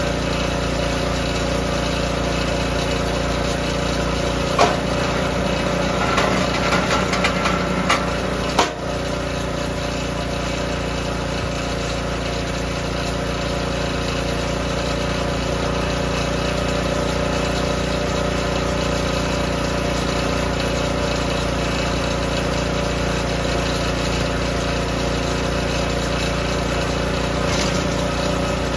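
DR K28 Pro kinetic log splitter's small gasoline engine running steadily. About four and a half seconds in there is a sharp knock, and from about six to nine seconds a spell of wooden clattering ends in another sharp knock.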